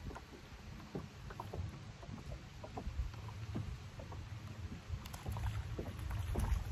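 Small waves lapping against the side of a boat, with a low wind rumble and scattered light knocks. Near the end a hooked crappie splashes at the surface as it is reeled up to the boat.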